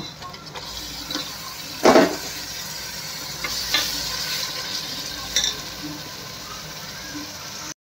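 Raw mutton pieces sizzling as they go into hot oil and fried onion-ginger paste in a pressure cooker, stirred and scraped with a perforated steel ladle. A louder clatter comes about two seconds in, with smaller knocks of the ladle later.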